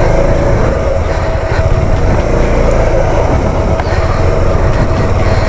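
Motorcycle engine running steadily while riding, with a constant low rumble and a steady whine over it.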